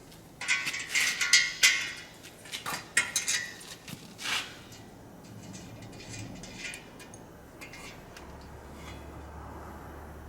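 Small metal parts clinking and clattering as they are handled, in a quick cluster during the first few seconds, then faint handling noises.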